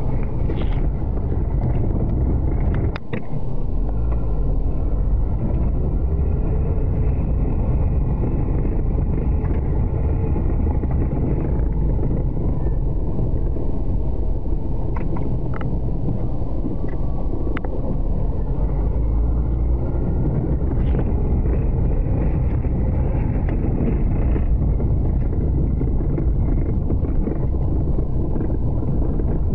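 A heavy vehicle's engine running steadily, a loud low rumble, with a few short clicks and knocks.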